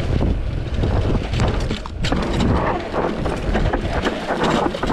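Mountain bike riding fast down a dry dirt trail: wind buffets the action-camera microphone with a heavy rumble while tyres crunch over the ground and the bike clatters and rattles over bumps.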